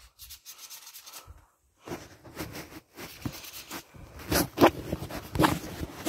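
Handling noise from the phone itself: its microphone rubbing and scraping against fabric and fingers as it is moved about, in irregular strokes with a few knocks. It is faint at first and louder in the last two seconds.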